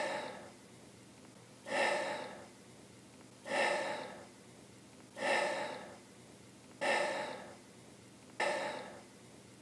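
A man's voice in short gasping sobs, six of them at an even pace about a second and a half apart, each starting sharply and fading away.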